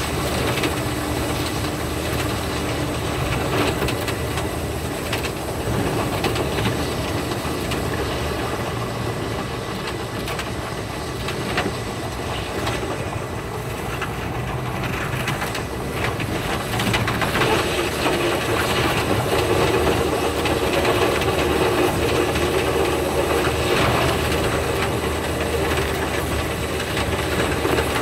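Running noise of the Thunderbird limited express electric train heard from inside the passenger car: a steady rumble with rapid, closely packed clicks of the wheels over the rails, sped up to 5.5 times normal speed.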